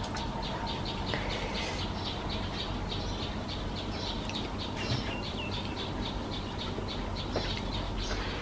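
A steady run of short, high chirps, about four a second, repeated evenly over a steady outdoor background.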